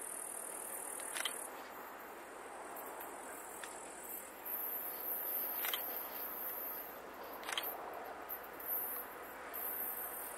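Insects in the grass chirring steadily at a high pitch, in a pulsing rhythm through the middle stretch, with a few short ticks.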